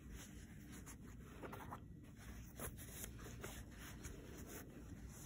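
Faint rustling and rubbing of stiff handwoven fabric and its lining being worked between the fingers, with a few brief soft scrapes a little after one and two seconds in.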